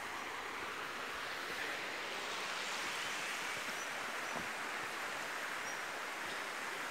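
River water rushing, a steady even hiss, with a few faint taps.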